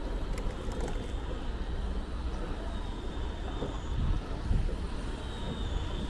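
Steady low rumble of city traffic and wind noise heard from a moving bicycle, with a few faint clicks in the first second.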